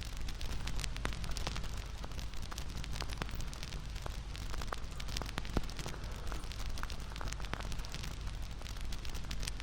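Wood fire crackling, with frequent small pops over a steady low rumble and one sharper pop about halfway through.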